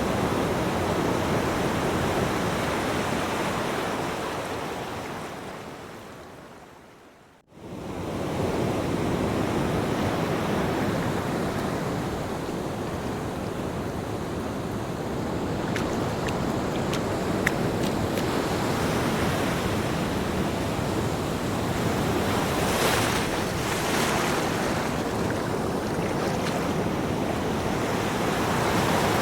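Recorded ocean surf: a steady wash of waves. It fades out to near silence about seven seconds in, then fades back in at once, as where a sound loop is joined. Some brighter swishes of breaking water come near the end.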